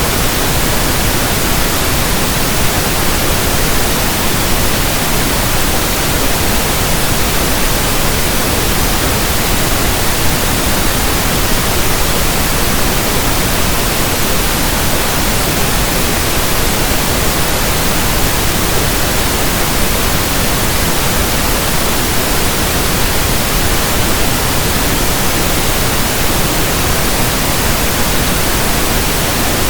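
Steady pink noise: an even, unchanging hiss across all pitches.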